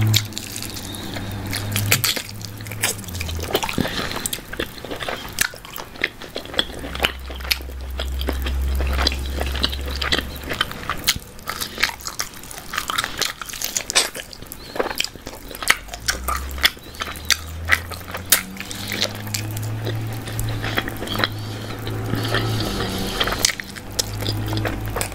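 Close-miked biting and chewing of barbecue chicken drumstick meat, with many short sharp mouth clicks and smacks.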